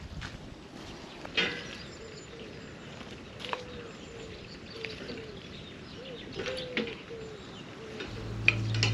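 Small birds calling in short repeated chirps, with a few sharp knocks and clicks, the loudest about a second and a half in. Music begins fading in near the end.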